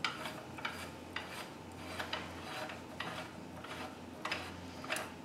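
Black knob being screwed by hand into a Bosch CM10GD miter saw to lock it, turned over and over: a string of faint, irregular scrapes and clicks from the threads and the hand rubbing on it.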